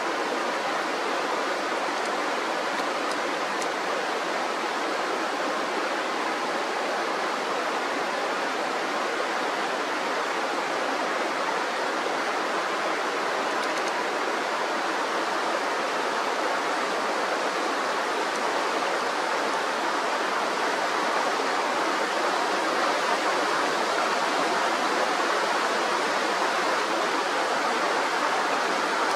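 Mountain river flowing: a steady, unbroken rush of running water.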